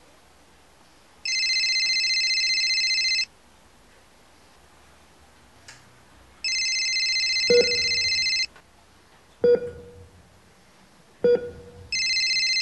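Telephone ringing in rings of about two seconds each, three times, with a pause of about three seconds between rings. Short sharp sounds come three times in the second half, one during the second ring and two between the rings.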